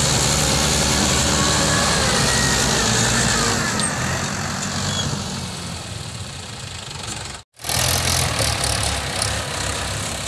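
Mahindra 575 tractor diesel engines running steadily while pulling. The sound drops out for an instant about two-thirds of the way through, then the engine note returns.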